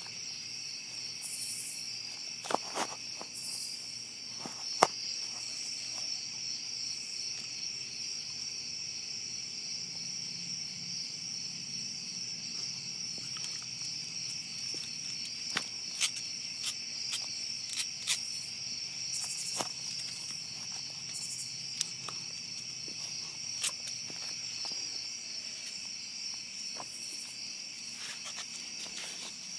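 An insect, cricket-like, trilling steadily and high-pitched without a break. Over it come a few short hissy sniffs and sharp clicks as a dog noses at the bug on the carpet.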